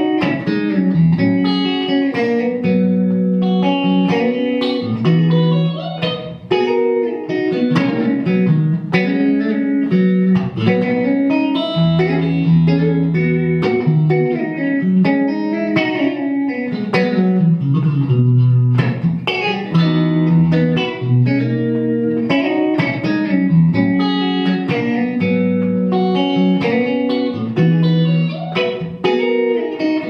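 Electric guitar with ST Custom "The Badger" humbucker pickups playing a melodic tune, a continuous run of picked notes with held low notes underneath.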